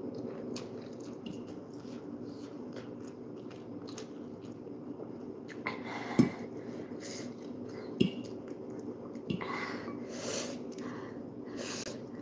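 A person eating spicy Samyang chicken noodles: chewing and slurping, with sharp hissing breaths through the mouth against the heat of the spice. A fork knocks a few times against the glass bowl, loudest about six and eight seconds in, over a steady low hum.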